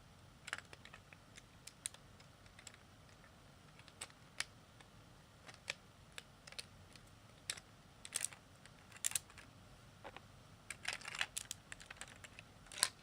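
Plastic Lego bricks clicking and clattering as they are handled, in irregular sharp clicks that come thicker near the end.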